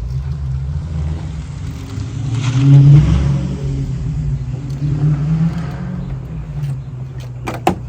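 A car engine running nearby, its hum swelling to a rev about three seconds in, then settling. Near the end come two sharp metallic clanks.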